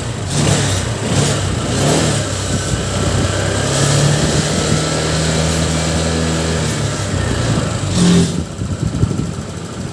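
Small motorcycle engine running: its pitch rises over the first few seconds, holds steady, then drops away about eight seconds in.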